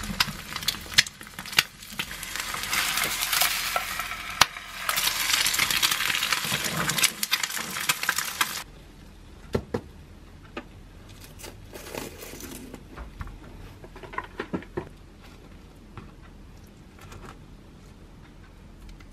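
An egg frying in a square nonstick pan, sizzling steadily, with clicks of chopsticks as the yolk is broken. The sizzle cuts off abruptly about eight seconds in and is followed by quieter crinkling of plastic cling wrap being pulled over a wooden cutting board.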